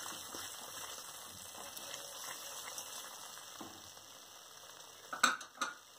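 Onion-tomato masala paste sizzling quietly in hot oil in a kadhai as it is stirred with a wooden spatula. The paste is well fried, with the oil separated around it. A couple of short clicks come near the end.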